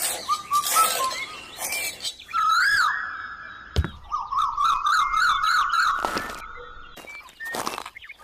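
Cartoon sound effects: a wavering, siren-like warbling tone, short whistly glides, one sharp hit just before the middle, and brief whooshes.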